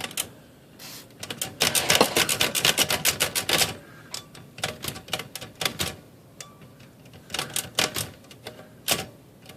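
Royal KMM manual typewriter mechanism clicking: a rapid run of clicks for about two seconds, then scattered single clicks and short flurries. The carriage return arm is being worked to test it after being flushed with cleaner.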